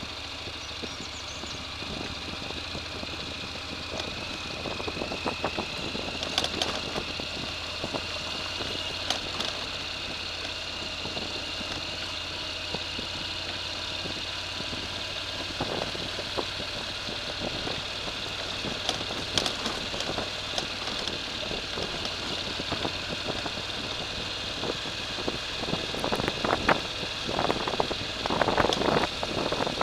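A small off-road vehicle's motor running steadily with a high whine, with scattered clicks and a burst of clattering and crunching near the end.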